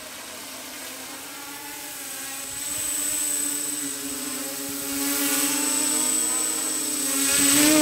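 DIY mini quadcopter's four small brushless motors and propellers buzzing in flight, with a thin high whine over the hum. The pitch wavers as the throttle changes, and the sound grows louder toward the end as the quad flies in close past the microphone.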